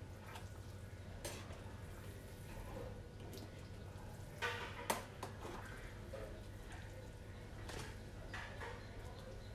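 Metal ladle scooping pork rib soup out of a stainless steel pot, with a few faint clinks and scrapes against the metal, the loudest two close together about halfway through. A low steady hum runs underneath.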